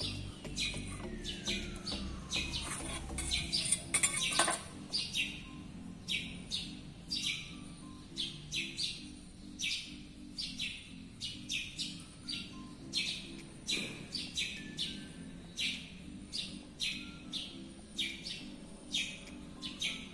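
Pencil scratching on a PVC sheet in short quick strokes, about two to three scratches a second.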